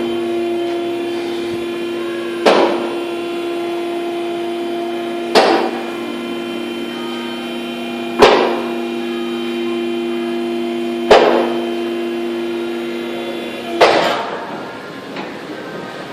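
Vehicle lift raising a car: the lift's motor hums steadily while its safety locks clank about every three seconds, five times. The motor stops with the last clank near the end.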